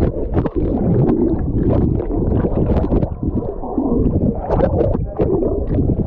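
Muffled rush of churning water, a dense low rumble broken by many short sharp splashes and knocks.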